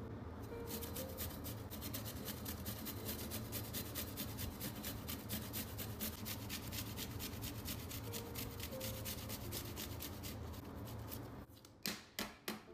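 Garlic cloves grated on a stainless steel hand grater: fast, rhythmic rasping strokes that stop suddenly near the end, followed by a few sharp taps.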